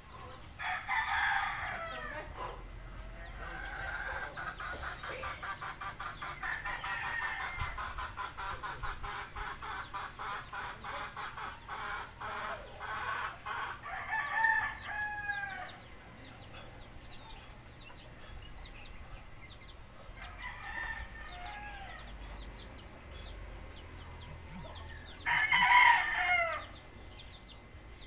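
A rooster crowing several times: about a second in, around the middle, faintly a little later, and loudest near the end. Each crow ends in a falling tail. Between the first two crows, a fast, rhythmic pulsing call runs for about ten seconds, with small birds chirping faintly throughout.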